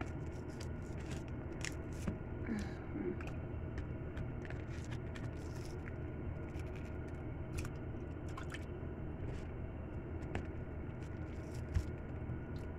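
Raw chicken wings being pulled apart and handled in a plastic tray: soft wet squishing with scattered small clicks and crackles, over a steady low hum.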